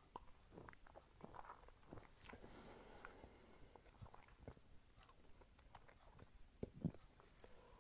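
Faint mouth sounds of a person tasting a sip of a fizzy drink: quiet smacking and small tongue clicks, with a short breathy rush a little after two seconds in and a louder click near the end.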